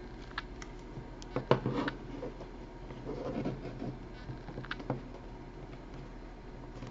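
Scattered light clicks and taps with some rubbing as hands handle and pry at the plastic case of a small portable thermal printer, trying to lift its stuck lid by the side release tabs.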